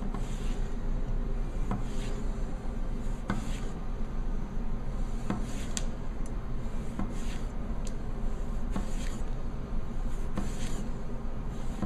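VG-10 gyuto chef's knife slicing through a thick-skinned lemon on a cutting board: a series of short cutting strokes and light knocks of the blade on the board, about one a second.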